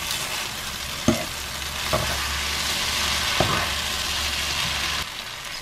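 Pad thai noodles, prawns and bean sprouts sizzling in a hot frying pan as they are tossed with metal tongs, with three sharp clicks of the tongs against the pan. A low hum runs underneath from about a second in until near the end.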